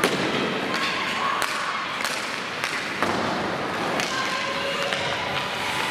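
Ice hockey play: sharp clacks and thuds of sticks on the puck and of the puck and players hitting the boards, roughly one every half second to a second, over a steady hiss of skates on the ice.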